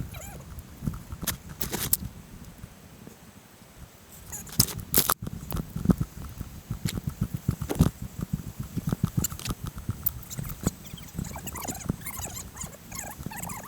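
Irregular rustling, scuffing footsteps and knocks close to the microphone, with a few sharper clicks and low thuds.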